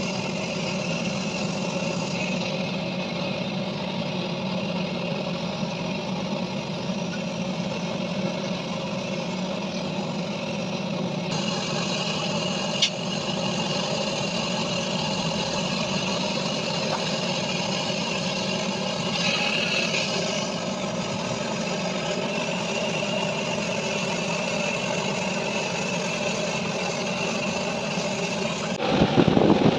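An engine or motor running steadily at an even speed, with a single sharp click about 13 seconds in and a louder burst of sound near the end.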